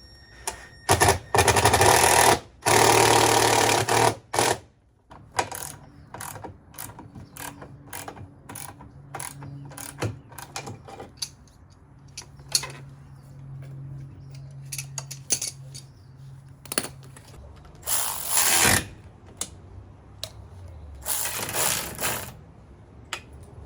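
A power drill run in several short bursts, with clicks and knocks of handling between them: work on a camper repair.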